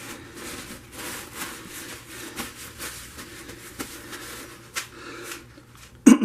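Soft, irregular rubbing and scraping of hands handling objects on the work surface. About six seconds in comes one brief, loud throat noise from the person.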